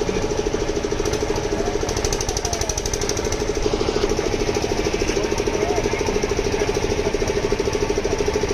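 An engine running steadily with a fast, even throb.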